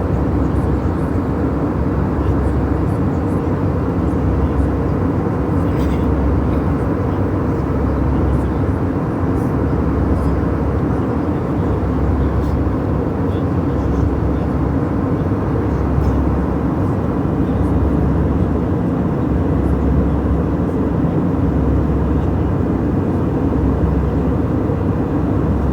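Airliner cabin noise in flight: a steady low rumble of jet engines and airflow, with most of its weight in the low end.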